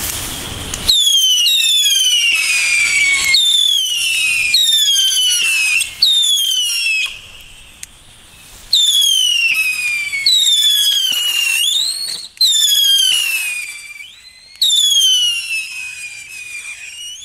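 Funke Luftheuler air howler fireworks whistling one after another: about ten loud, high-pitched howls, most sliding down in pitch over a second or so, some overlapping, with a short lull partway through.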